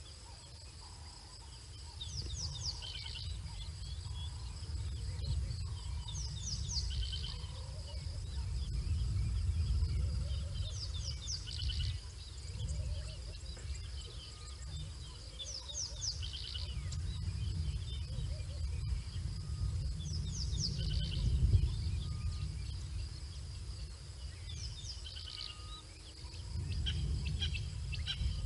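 Bush ambience: insects keep up a steady high drone, while a bird repeats a short chirping phrase every four to five seconds. Under both runs a low rumble that swells and fades, the loudest sound present.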